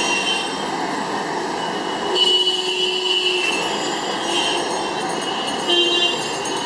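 Busy street traffic noise with vehicle horns honking repeatedly: one long blast about two seconds in lasting roughly a second, then shorter toots later on.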